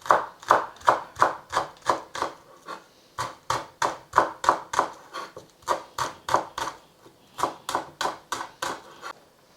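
Kitchen knife chopping spring onion on a cutting board: a steady run of sharp knocks, about three a second, with two short pauses, stopping just before the end.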